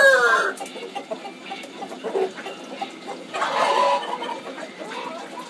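The end of a rooster's crow, falling in pitch and stopping about half a second in, from a Black Australorp–Light Brahma cross. Soft, scattered clucking from chickens follows, with one louder call about three and a half seconds in.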